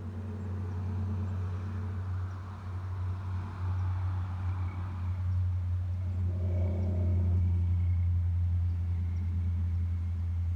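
A steady low mechanical drone, like an engine running, slowly getting louder.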